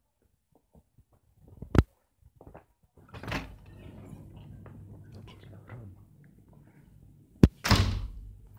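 Glass-panelled shop front door: a sharp click of the latch about two seconds in, the door swinging open a little later, then a sharp knock and a thud as it shuts near the end. A faint low steady hum runs once inside.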